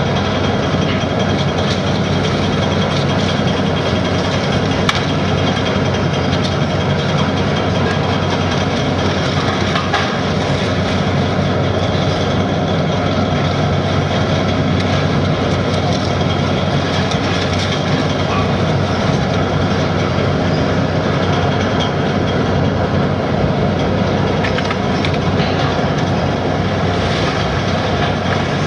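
Heavy demolition machinery's diesel engine running steadily, with a few sharp cracks and crunches of breaking building material.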